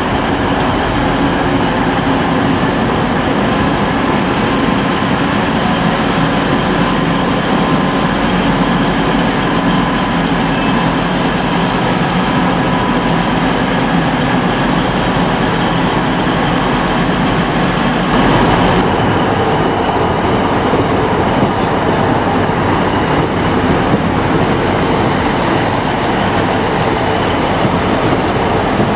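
Two coupled Siemens Class 185 Desiro diesel multiple units running slowly past, a steady rumble of engines and wheels on rail. About eighteen seconds in the sound changes abruptly to two coupled Class 150 Sprinter diesel units pulling away.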